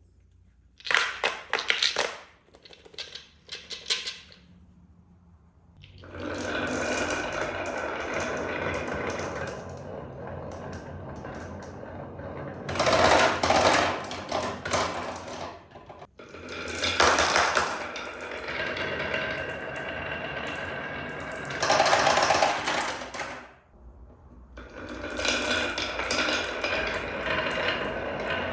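Marbles rolling and rattling down a marble run of toy-garage ramps and wooden tracks: a few separate clicks in the first seconds, then steady rapid rattling from about six seconds in, with three louder clatters.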